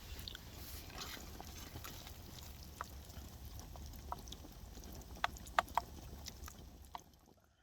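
Chili simmering in a pan on a camp stove: a low steady rumble with scattered small clicks and taps. The sound cuts off abruptly near the end.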